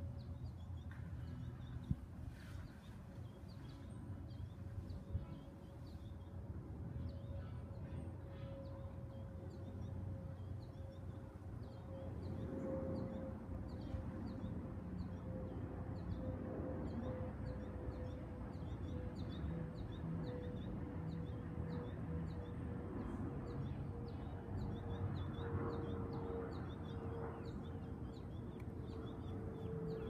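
Outdoor ambience: a steady low rumble and a faint steady hum, with short high chirps from small animals repeating over and over.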